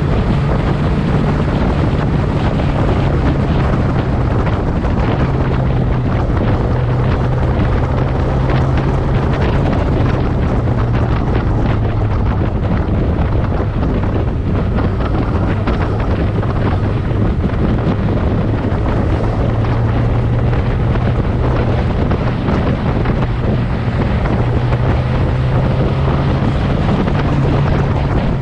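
Motorcycle engine running at a steady cruise, its pitch shifting slightly a few times, under heavy wind noise on the onboard microphone.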